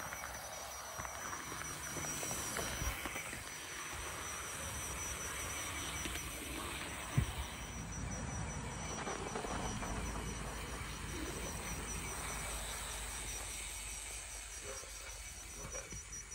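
00 gauge model locomotive running along garden-railway track, a faint low running noise, over outdoor ambience with insects chirping. A single sharp click about seven seconds in.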